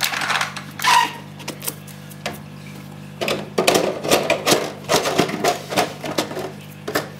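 Plastic body shell of a Traxxas E-Revo RC monster truck being fitted back onto its chassis: light plastic clicks and rattles in quick runs, busiest in the second half.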